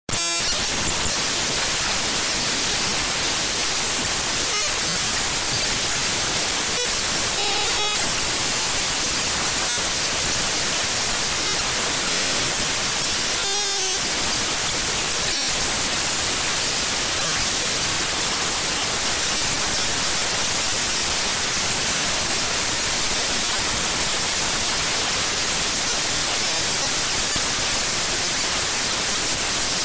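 The program file audacity.exe (Audacity 1.3 Beta, Unicode) played back as raw audio data: a steady hiss of static, with two brief pitched flickers in the noise, around eight and fourteen seconds in.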